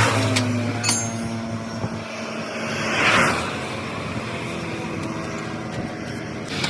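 Motor vehicle sound: a steady engine hum with two swells of rushing noise, at the start and about three seconds in, like vehicles passing. A sharp click comes about a second in.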